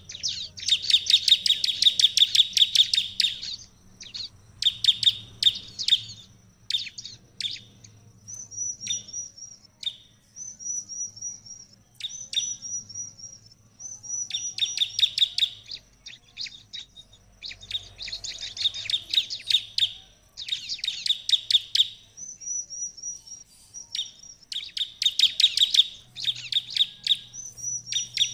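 A bar-winged prinia (ciblek) singing loudly in repeated bursts of fast, sharp chirping notes, a couple of seconds per burst. Between the bursts come short, high whistled notes.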